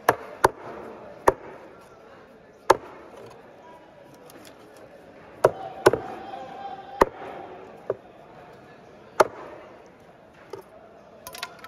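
A long fish knife chops through trevally flesh and bone onto a cutting board, with about ten sharp, irregularly spaced chops.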